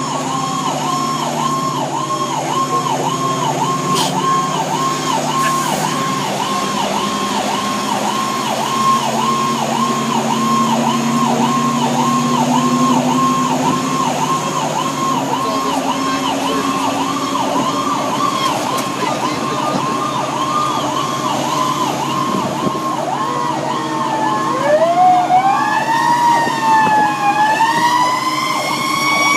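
Fire engine's electronic siren on a fast yelp, about three cycles a second, heard from inside the cab over the engine's running. About twenty-four seconds in, it changes to a slower rising and falling wail.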